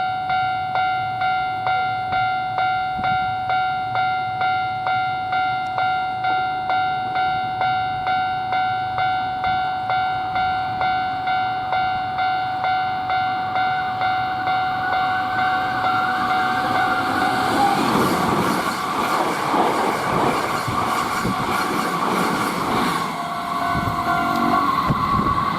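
Japanese level-crossing electronic warning bell ringing in an even, repeating chime, about one and a half strokes a second. About seventeen seconds in, a Hankyu Kyoto Line limited express train passes, its wheels clattering over the rail joints and drowning out the bell.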